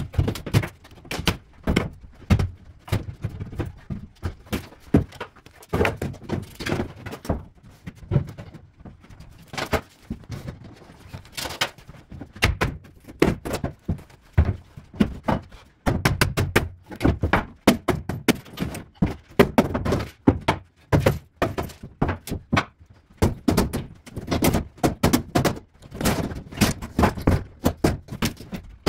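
Many irregular thuds and knocks of furniture and household junk being moved, dropped and thrown about while a room is cleared out.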